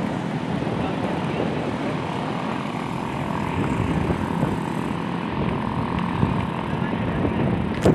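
Busy seashore noise: waves washing through the shallows and a crowd's chatter, a steady dense wash of sound. A sharp click comes just before the end.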